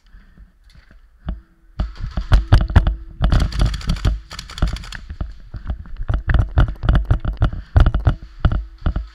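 Camera rattling and knocking on its mount as the wearer runs, with footfalls: rapid, irregular thumps and clatter that start about two seconds in, after a quiet moment.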